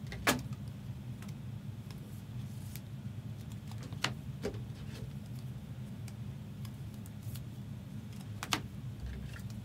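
Steady low room hum with a few sharp clicks or taps: a loud one just after the start, two about four seconds in, and one near the end.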